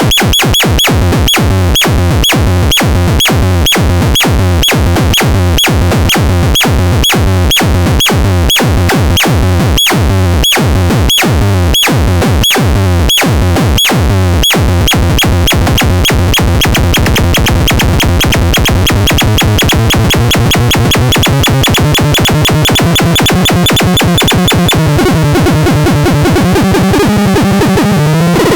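Micro Tanz 2 electronic synthesizer sounds: a repeating synthesized percussive zap, each a fast falling sweep, at about two a second. The hits speed up past the middle until they blur together, then turn into a wavering pitched electronic tone near the end.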